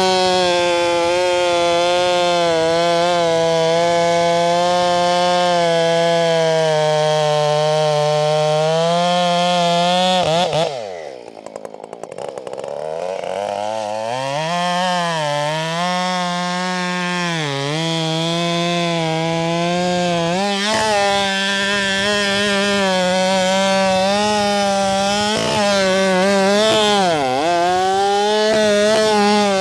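Husqvarna 572XP two-stroke chainsaw with a 24-inch bar running at full throttle while bucking a large pecan trunk. About ten seconds in the throttle is released and the engine winds down to idle, then it revs back up and cuts again, its pitch dipping briefly several times under load.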